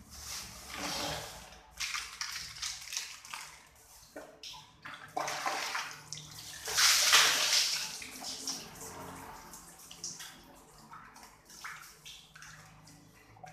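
Water poured from a plastic dipper over a man's head and body, splashing onto a tiled floor. Several pours, the longest and loudest about seven seconds in, then fainter splashing.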